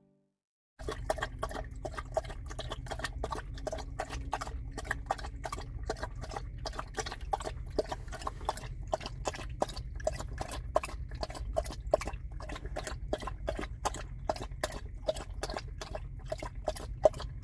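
Dog lapping water from a stainless steel bowl, a quick, even run of wet laps, about four or five a second, starting about a second in.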